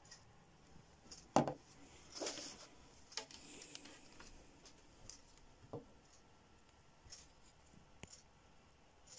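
Handling noise of cables and a plastic power adapter on a wooden table: one knock about a second and a half in, a short rustle just after, then a few faint clicks and taps.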